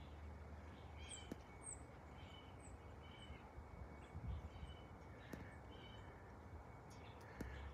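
Faint outdoor ambience: small birds chirping, short high notes repeating about twice a second, over a low steady rumble.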